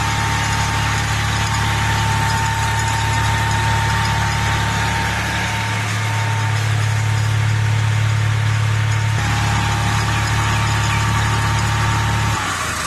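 A gas-fuelled (LPG) generator engine running steadily with a loud hum and a steady whine, the note shifting a couple of times. Near the end the whine sags and the engine hum stops as it shuts down.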